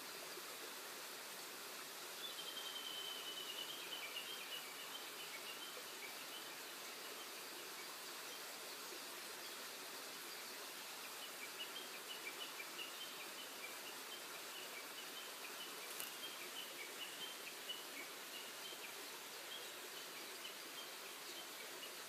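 Forest ambience with birds calling: a quick run of short chirps about two seconds in, then scattered chirps again from about eleven seconds on, over a steady hiss.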